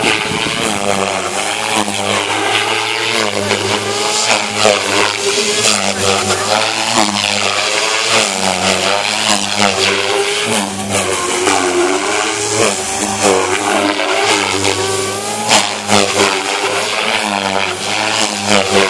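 Devil 420 electric RC helicopter flying aerobatics: the rotor blades' buzz and motor whine rise and fall in pitch continuously as the load changes with each manoeuvre, over a steady rushing blade hiss.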